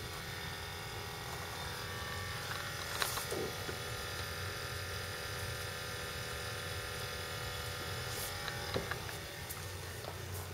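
2015 Subaru's evaporative-emissions system running its leak check after the engine has been off for hours: a small electric pump near the rear, which the owner takes for a vacuum pump, gives a steady, even buzz.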